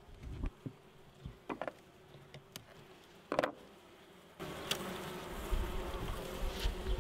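Honeybees buzzing around an open hive, with a few light clicks and knocks as the wooden frames are pushed apart and one is lifted out. The buzzing grows louder about four seconds in.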